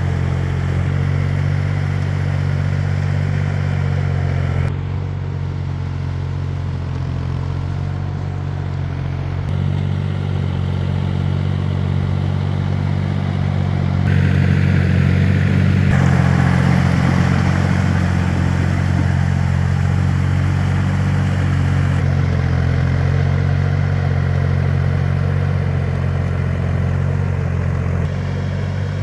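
Engine of a small farm tractor or tiller running steadily. Its tone and loudness shift abruptly every few seconds.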